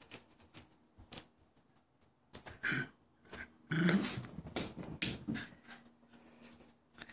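A small dog making short vocal sounds in bursts while it plays with a hard plastic toy football. A few sharp knocks come from the toy being batted about.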